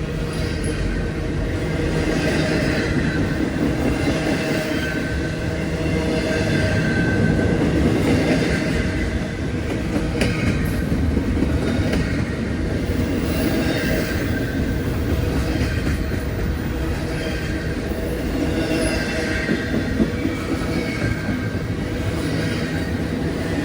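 A train rolling along the track: a steady rumble of wheels on rail, with high wavering squeals from the wheels and an occasional sharp clank.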